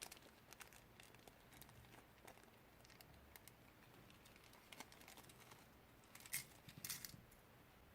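Faint, scattered clicks and crinkles of small objects and packaging being handled, with a louder cluster of clicks about six and a half seconds in.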